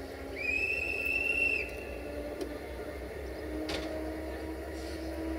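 One long blast of a railway staff member's hand whistle, about a second and a half long, giving the train its departure signal. Under it runs the steady hum of the idling 060-EA electric locomotive, and a short knock comes about two thirds of the way in.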